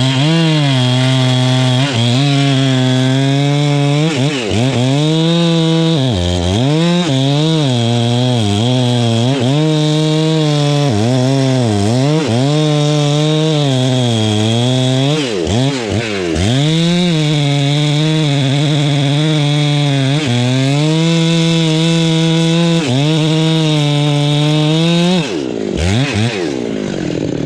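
Two-stroke chainsaw running hard while cutting into a mahogany trunk, its engine note repeatedly sagging under load and recovering. Near the end the engine pitch falls away sharply and a rougher, noisier sound takes over.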